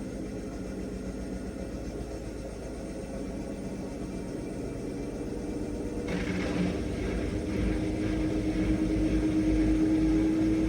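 Bauknecht washing machine on its 1400 rpm spin cycle: a steady machine hum with a whirring drum. About six seconds in it grows louder, with added rushing noise and low rumble and a stronger hum.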